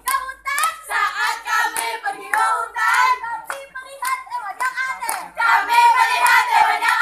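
A group of girls chanting a yel-yel scout cheer together, with many hand claps mixed in.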